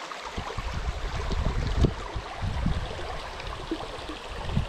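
Small rocky brook running, a steady rush of water, with irregular low rumbles and a few dull thumps, the strongest a little under two seconds in.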